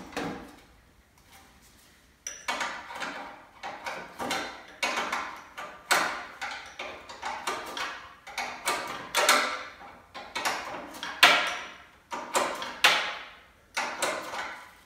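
A hand tool worked in quick repeated short strokes on the Beetle engine's fittings, starting about two seconds in and keeping on, irregular, two to three strokes a second.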